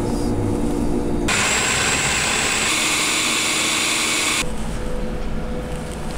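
Electric food processor motor running, chopping roasted tomatillos, cucumber, cilantro, garlic, lime juice and hot sauce into a puree. Its loudest, hissing stretch lasts from about a second in to about four and a half seconds in and cuts off abruptly, leaving a lower hum.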